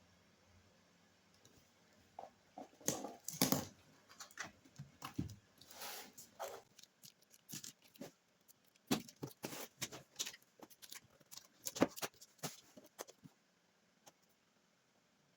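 Hands handling a toy's box and packaging: an irregular run of clicks, taps and rustles that starts about two seconds in and stops about two seconds before the end.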